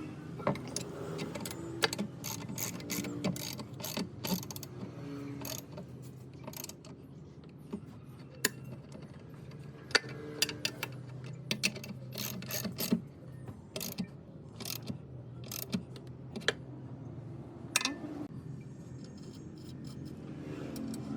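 Irregular sharp metallic clicks and clinks of hand tools on metal machine parts, with a steady low hum underneath.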